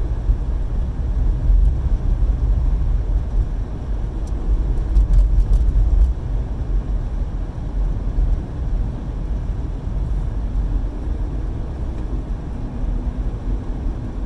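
Steady low rumble of a car driving, road and engine noise heard from inside the cabin, a little louder in the first few seconds.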